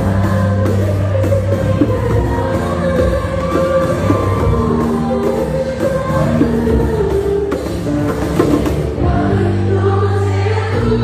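Live concert music: a woman singing over acoustic guitar, with backing vocals.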